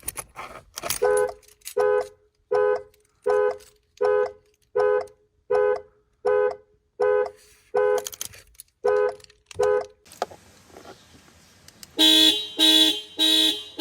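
Car panic alarm sounding through the horn: a steady rhythm of short honks, about one every three-quarters of a second, a dozen in all, then stopping. About two seconds later a louder, lower-pitched horn honks four times at a quicker pace.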